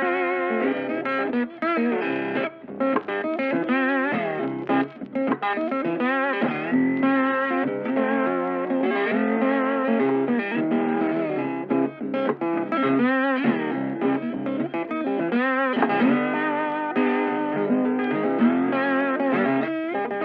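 Background music led by a guitar, playing a continuous melody with bent, wavering notes.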